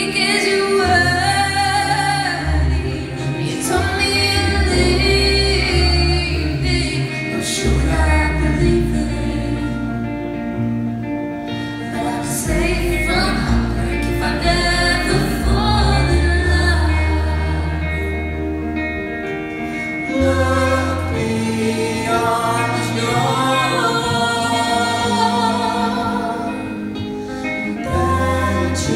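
Live indie rock band playing a song with a heavy bass line and sung vocals, the audience singing along.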